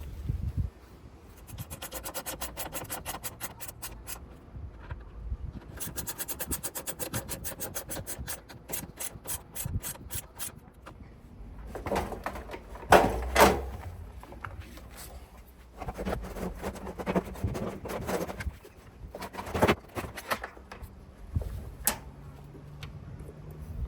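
Hand reassembly of a washing machine: two long runs of rapid, even clicking, like a ratchet, then irregular knocks, bumps and scraping as panels and parts are handled and fitted.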